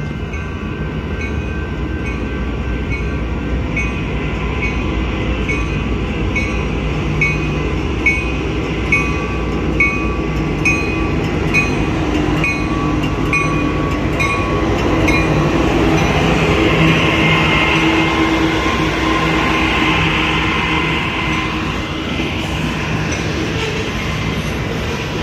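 Union Pacific diesel freight locomotive running as it passes close by, its rumble loudest in the middle, followed by tank cars rolling over the rails. A bell dings at a steady beat through the first half, and a few sharp clicks come from wheels over rail joints.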